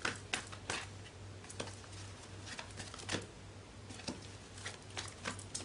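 Tarot cards being handled: irregular light clicks and taps, over a steady low hum.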